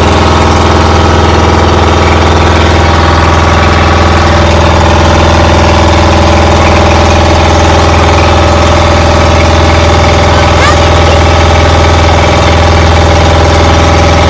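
An engine running steadily at an even speed, loud and close, with a constant deep hum.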